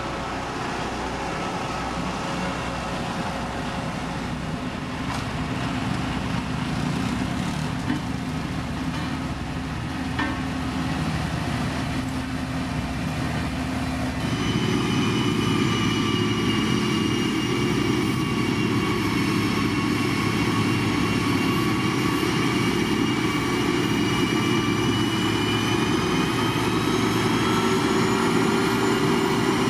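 Diesel road-construction machinery (motor grader or road roller) running steadily. About halfway through, the sound jumps louder and a high whine joins the engine note, its pitch creeping up near the end.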